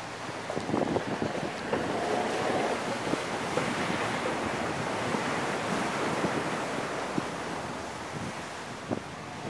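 Wind rushing over the microphone of a camera mounted on the roof of a moving vehicle on a dirt road, with scattered short knocks and rattles as it goes over the bumps.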